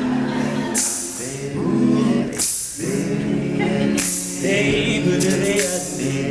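Male a cappella group singing a wordless backing groove in close harmony, with vocal-percussion snare hits about every second and a half.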